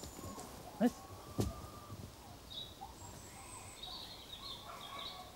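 A short cry and a sharp knock about a second in, then small birds chirping in thin, high calls through the second half.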